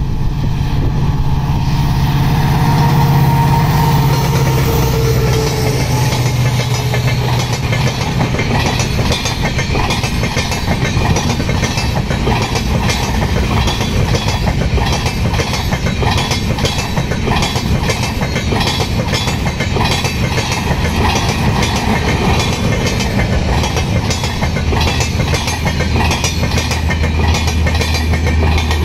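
Indian Railways express train passing close by at speed: a loud low drone as the front goes by, then a long rake of air-conditioned passenger coaches with rapid, steady clickety-clack of wheels over rail joints. A deeper hum comes in near the end as the generator power car at the tail approaches.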